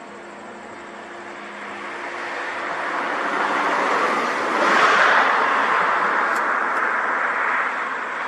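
A road vehicle passing close by: tyre and engine noise builds, is loudest about five seconds in, then slowly eases off.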